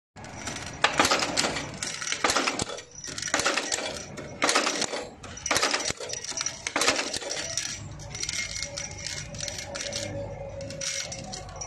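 Automatic rivet-feeding riveting machine setting tubular rivets into a sheet, each stroke a sharp metallic clank, about once a second for the first seven seconds. After that come lighter metallic clinks over a steady hum.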